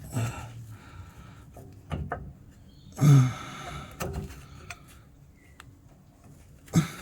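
Scattered knocks and clunks of hands working the exhaust and a rubber exhaust mount while trying to fit the mount, with a louder one about three seconds in and another sharp one near the end.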